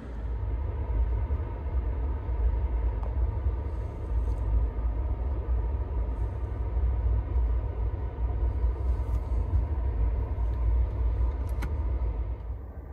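Steady, low rumble inside an Amtrak Superliner sleeping car as the train runs: wheels on the rails and the car body, heard from the berth. A faint click comes near the end.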